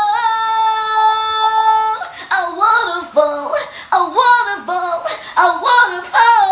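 A high female voice singing unaccompanied: one long steady note for about two seconds, then a run of short notes that slide up and down.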